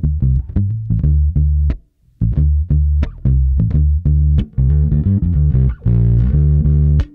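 Electric bass played through an EarthQuaker Devices Blumes Low Signal Shredder pedal set for light, tube-like breakup with the tone rolled back: a run of plucked notes, a short break about two seconds in, then more notes, fuller and busier near the end.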